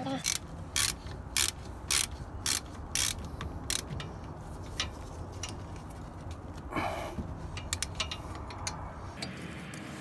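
Ratchet wrench clicking in strokes, about two a second, as the brake caliper slide pin bolts are tightened. The clicks go fainter after about four seconds, with a short scrape near the middle.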